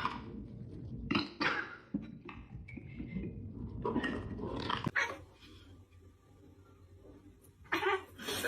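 A dog barking in several separate bursts, about four over the few seconds, with quieter stretches between.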